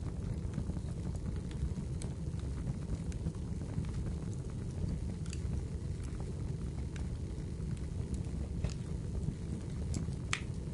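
Fire crackling: a steady low rumble with scattered sharp pops, the loudest near the end.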